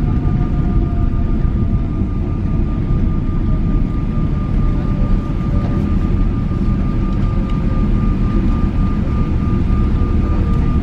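Jet airliner heard from inside the cabin during landing: a heavy, steady rumble with a steady whine and a second whine that slowly falls in pitch.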